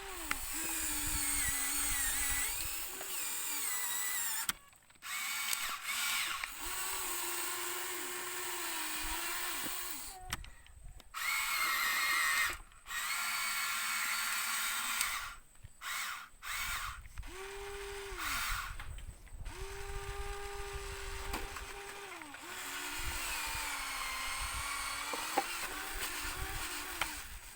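Small electric motor whining in runs of a few seconds, its pitch sagging and recovering as the load changes, with several brief abrupt stops in between.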